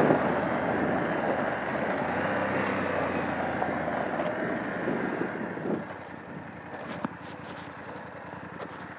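BMW F 850 GS Adventure's parallel-twin engine running, with wind and tyre noise as the motorcycle rides over gravel. It grows quieter after about five seconds as the bike slows.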